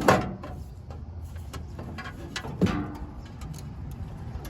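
Parts of a pellet grill being handled during reassembly: a sharp knock right at the start and another about two and a half seconds in, with light clicks between them.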